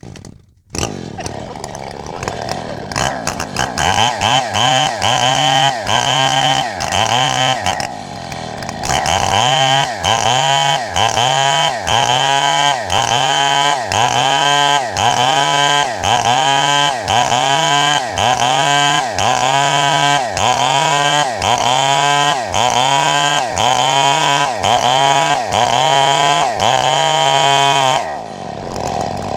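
Two-stroke chainsaw running loud as it shapes a block of wood. The engine pitch dips and recovers in a steady rhythm, a little faster than once a second, as the chain loads in the cut and frees again. It eases off near the end.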